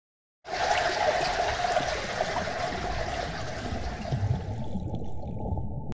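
Running, splashing water, starting suddenly about half a second in. Near the end it turns muffled as its upper range is cut away, like sound heard from under water, then it stops abruptly.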